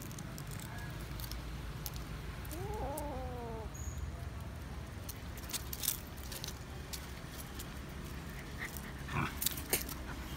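A kitten gives one short meow that rises and falls, about three seconds in, while light clicks and taps, likely paws and scuffling on the paving, come and go, with a small cluster of sharper clicks near the end.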